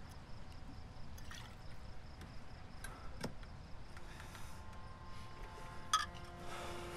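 Quiet outdoor ambience with scattered small clicks and a sharp tap about six seconds in. Soft, held music notes fade in for the last two seconds.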